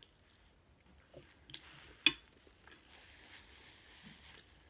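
A metal fork clinks sharply down onto a plate about two seconds in, followed by the soft rustle of a paper napkin wiping a mouth.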